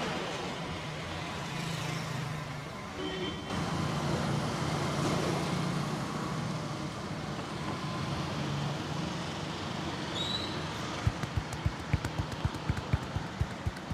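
Street traffic hums steadily in the background. About eleven seconds in, rapid rhythmic slaps of hands on the body start, about four a second, as in a street barber's massage.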